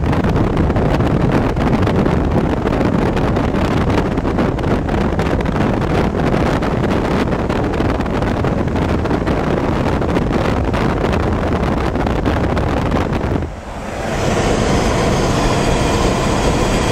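Steady rush of wind and road noise from a moving car, with wind buffeting the microphone. The noise dips briefly about three-quarters of the way through.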